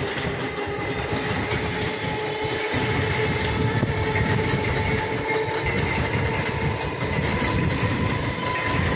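Indian suburban electric multiple-unit (EMU) local train running past, its wheels clattering over the rail joints, with a steady whine over the rumble.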